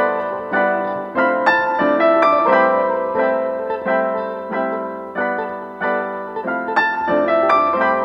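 Background piano music: a gentle melody of struck notes that ring and fade, several notes a second.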